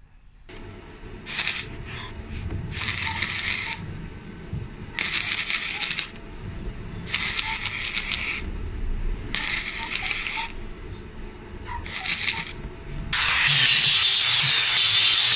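A MIG welder laying a series of short welds: about six bursts of a second or less each, with pauses between. About two seconds before the end, an angle grinder starts grinding a steel bar, steady and louder than the welding.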